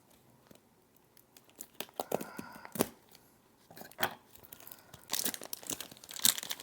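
Parcel packaging being torn open by hand: a run of sharp rips, crackles and crinkles, sparse at first and busiest near the end.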